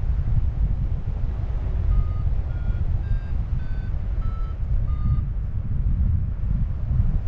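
Wind buffeting the microphone in a heavy low rumble. From about two seconds in, a run of short high beeps at shifting pitches comes roughly twice a second for a few seconds.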